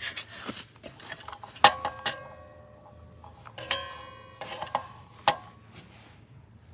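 Several sharp metallic clinks and knocks, the strongest leaving a short bright ringing tone, as of hard metal parts being handled and knocked together.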